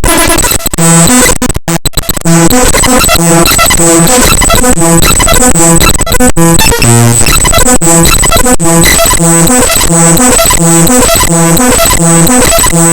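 Raw binary data of the Windows XP SP2 file xpsp2res.dll played as 8-bit mono audio: loud, harsh buzzing noise with a steady high whine. It is choppy for the first two seconds, then settles into a repeating pulse about every two-thirds of a second.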